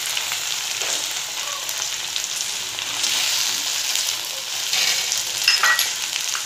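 Cut okra sizzling steadily as it fries in hot oil in a kadai, with a few short scrapes and knocks of a metal slotted spatula stirring it.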